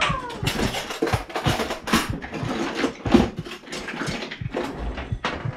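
Rummaging: steady irregular rustling and clattering as cloth, plastic and dishes on a cluttered kitchen counter are shoved about and picked up.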